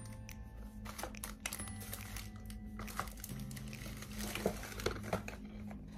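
Plastic packaging crinkling, with irregular clicks and knocks as a plastic nasal-rinse squeeze bottle is handled, over soft background music.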